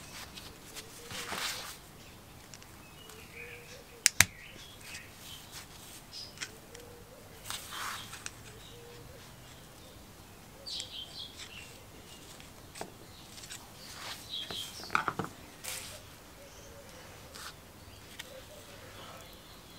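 Small metal pump parts being handled on a rubber mat: scattered light clicks and taps with rustling of work gloves, and a sharp double click about four seconds in.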